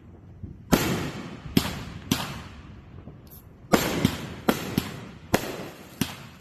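Backyard consumer fireworks going off: a string of about nine sharp bangs at uneven intervals, each fading out briefly, with the bangs coming closer together in the second half.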